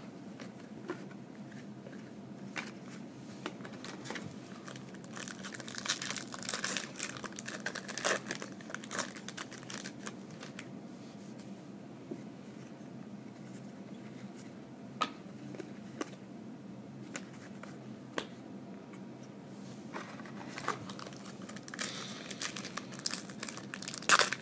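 Crinkling and tearing of a foil trading-card pack wrapper being opened by hand, in two spells of crackling: one a few seconds in and one near the end. Between them come scattered light clicks as cards are handled.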